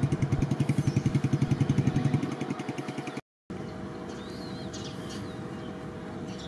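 An engine idling close by with a rapid, even pulse, which fades away a little after two seconds in. After a brief dropout comes a steadier, quieter engine hum with birds chirping over it.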